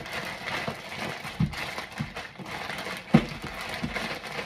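Plastic zip-top freezer bag crinkling as seasoned chicken drumsticks are tossed around inside it, with soft irregular thuds of the pieces, the loudest about three seconds in.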